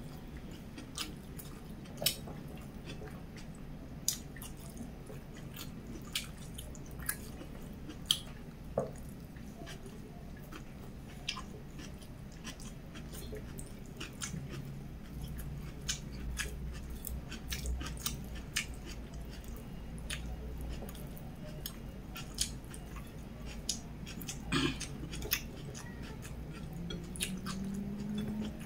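Close-miked eating: chewing a mouthful of rice with bean sprout sambal, with irregular wet mouth clicks and smacks every second or so.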